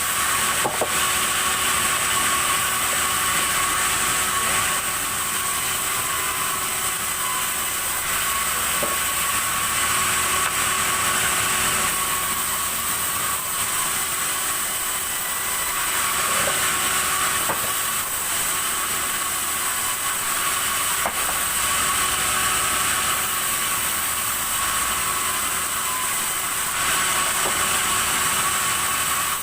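Sawmill saw running steadily through red timber: a loud, even, hiss-like machine noise with a few faint clicks.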